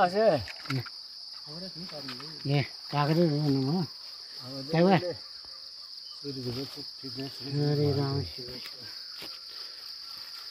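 Steady high-pitched insect drone, with people's voices talking in short snatches over it.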